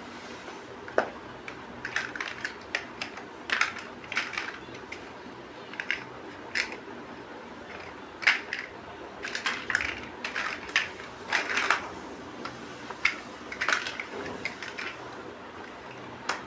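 Plastic building bricks clicking and rattling as they are handled and snapped together, in irregular single clicks and short quick clusters.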